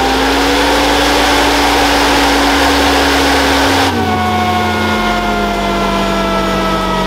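Polaris RZR side-by-side engine held at high revs with the rear wheels spinning freely in the air, a loud rushing run. About four seconds in the throttle is released: the rush cuts off and the engine note drops and slowly winds down.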